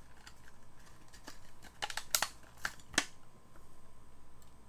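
Thin plastic blister packaging crinkling and clicking as a die-cast toy car is pulled out of it by hand, with a few sharp clicks in the middle.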